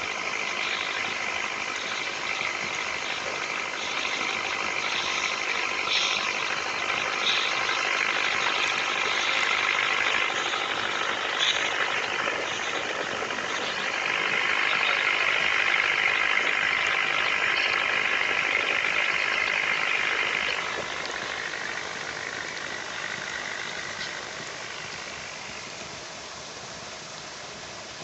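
Toy pop-pop (otok-otok) steam boat engine running, a fast steady putt-putt rattle that gets quieter in the last third.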